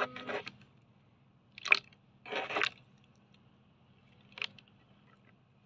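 Glitter slime squishing under fingers as it is pressed and pulled: three short wet squelches, the middle one the longest.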